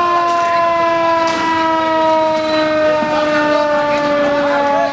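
Fire truck siren holding one long note that slowly falls in pitch, with a couple of short knocks.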